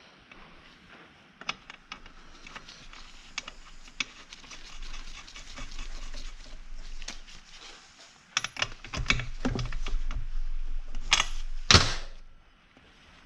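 Hand work on small-engine parts: scattered clicks and a scraping hiss, followed by a louder run of knocks and clatter about two-thirds of the way through.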